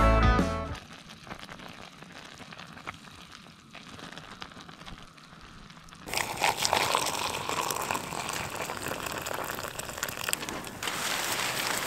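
Guitar music ends within the first second. Then come faint clicks and scrapes of a utensil in a cooking pot. From about six seconds in there is a steady rushing, splashing hiss, which near the end is hot water pouring into a metal camp mug.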